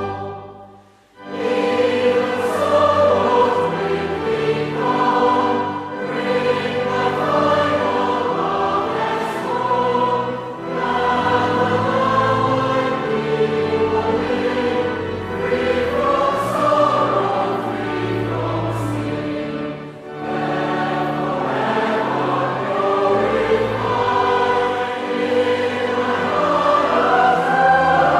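A church congregation singing a hymn, in phrases with short breaks between lines.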